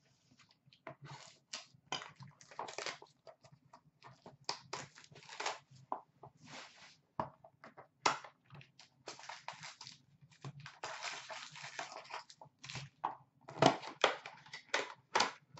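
Cardboard hockey card box being torn open and its foil-wrapped packs handled: irregular crackling, crinkling and tearing of card and wrapper, with the loudest crackles near the end. A faint steady low hum runs underneath.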